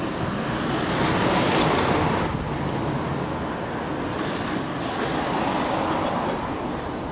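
A Toden Arakawa Line tram running slowly toward the listener, its wheels rumbling on the rails with a little clatter. The rumble swells about a second in and again about five seconds in.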